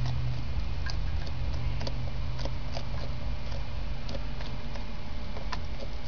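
Light, irregular clicks and ticks, one every half second or so, over a steady low hum that stops about four and a half seconds in.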